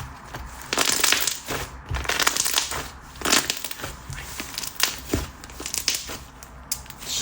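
Thick Korean clay slime being worked by hand, giving irregular crackling pops and squishes in clusters as it is stretched and pressed. It is chewy, with some resistance, and is thought slightly overactivated.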